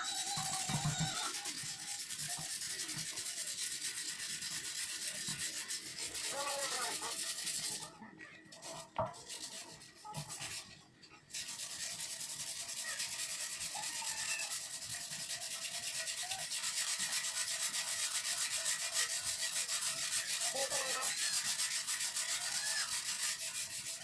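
Sanding the steel gas tank of a Honda TMX 155 to prepare it for repainting: a steady scratchy rubbing that stops for about three seconds near the middle, then carries on.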